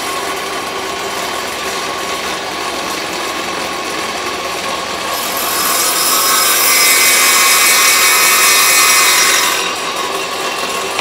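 Table saw running with its blade spinning free, then from about five seconds in to about nine and a half a louder hissing rasp as the block is fed across the blade at an angle, taking a shallow cove-cutting pass with the blade raised about 1/16 inch; afterwards the saw runs free again.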